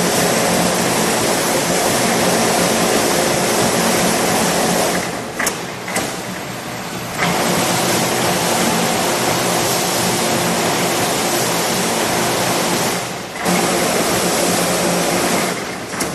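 Veer Advance-812 hydraulic wire straightening and cutting machine running: a loud, steady mechanical noise with a hum. It drops off twice, for about two seconds from about five seconds in with a couple of sharp clicks, and briefly around thirteen seconds, then runs again.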